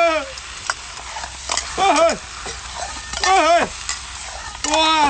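Metal ladle stirring and scraping seafood in a steel wok, with sharp clicks of metal on metal over the steady sizzle of frying. Three short vocal exclamations, without words, break in.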